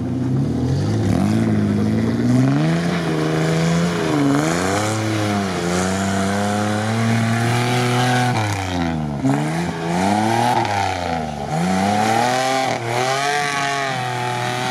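Short-wheelbase Mitsubishi Pajero II's engine revving hard off-road under load, its pitch rising and falling over and over every second or two as the driver works the throttle through a snowy, waterlogged ditch.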